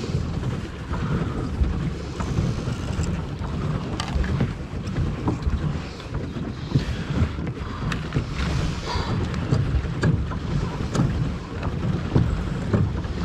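Wind buffeting the microphone in an uneven low rumble, over water sloshing and splashing against a pedal boat as it is pedalled along.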